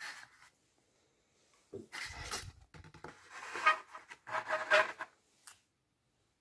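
Rubbing and scraping as the SSD and its packaging are handled: about four short scrapes with a slight squeak, the longest and loudest in the middle, stopping about five and a half seconds in.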